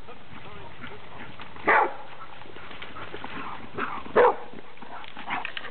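Dog barking at a remote-control boat: two loud single barks about two and four seconds in, with a few quieter short barks between and near the end, over steady background noise.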